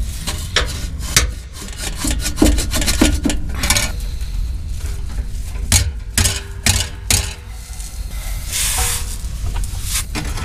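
A stainless steel exhaust pipe is worked by hand onto a pickup's exhaust mid-pipe. It gives repeated metal knocks and clanks, and the pipes rub and scrape against each other, with a longer rasping scrape a little after eight seconds in. The out-of-round, egg-shaped new pipe is not slipping over the mid-pipe.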